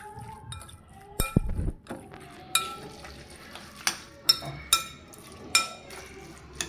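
A metal spoon stirring spiced chopped cabbage and capsicum in a glass mixing bowl, clinking against the glass about once a second with a short ring after each strike. A heavier knock with a low thud comes a little over a second in.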